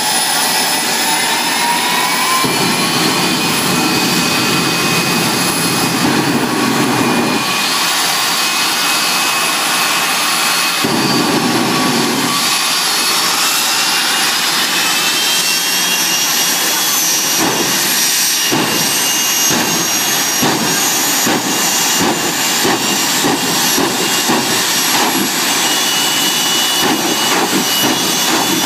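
Jet drag cars' turbine engines running at the starting line: a loud, steady jet rush with a high whine that rises in pitch in the first couple of seconds and again about halfway through.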